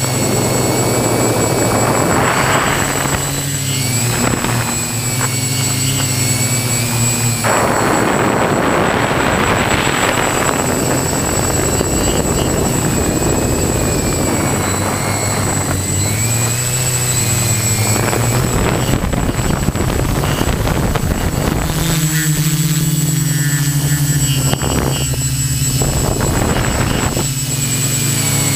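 A quadcopter's electric motors and propellers buzzing in flight, heard up close from its onboard camera. The pitch steps up and down as the motors change speed, with several spells of rushing noise.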